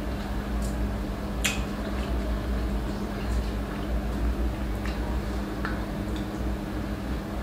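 Eating with the bare hand: fingers squishing rice and pulling at fried chicken, with a few sharp wet clicks of chewing and lip smacks scattered through, over a steady low hum.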